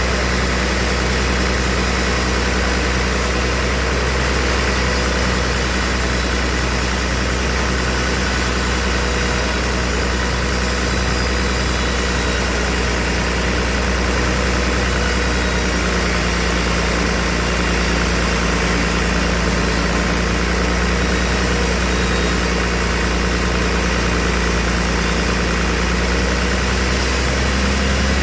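Sawmill band saw machinery running steadily: a constant low drone with a hiss over it, shifting slightly near the end.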